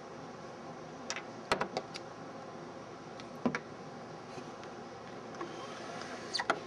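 A few short, light clicks and knocks over a steady low hum.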